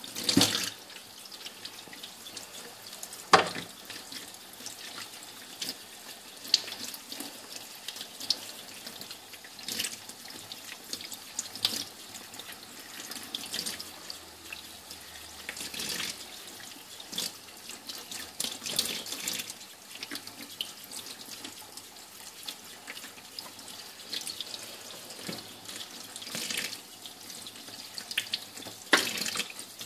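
Kitchen tap running into a stainless steel sink while a cuttlefish is rinsed and worked by hand under the stream, with splashes and occasional knocks against the sink; a sharp knock a few seconds in is the loudest.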